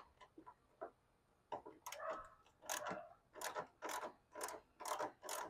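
Hand ratchet wrench with an 8mm socket clicking in short rasping strokes about twice a second as headlight bolts are worked loose. The strokes begin about a second and a half in, after a few faint ticks.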